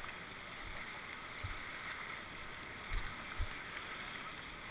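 Whitewater rushing steadily through a rapid in an artificial slalom channel. A few dull low thumps stand out, the loudest about three seconds in.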